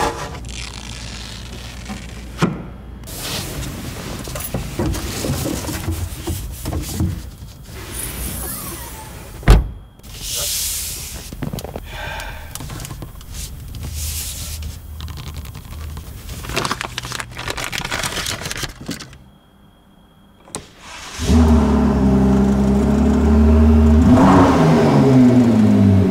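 Plastic protective film being peeled, crinkled and rubbed off a car's surfaces, with a sharp knock about a third of the way in. After a short lull, the Ford GT's twin-turbo V6 starts about three-quarters of the way through and runs with one rev that rises and falls.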